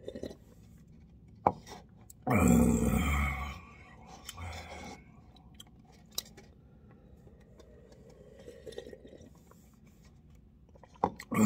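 Mouth sounds of broth being drunk straight from an instant-noodle cup: slurping and gulping, with a loud slurp a couple of seconds in and another near the end, and a few small clicks.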